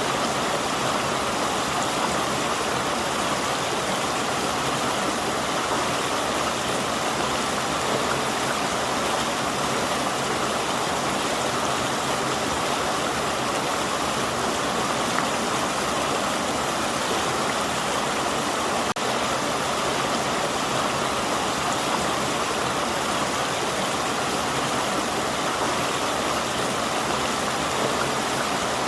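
River water flowing and rushing over rocks, a steady even rush with the most energy in the middle of the range.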